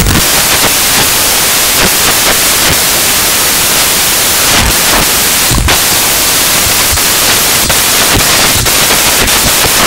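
Loud, steady static hiss that drowns out everything else, with a few faint clicks scattered through it.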